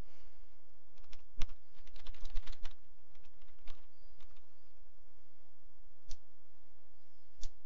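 Typing on a computer keyboard: a quick run of keystrokes about one to three seconds in, then a few single clicks with pauses between them.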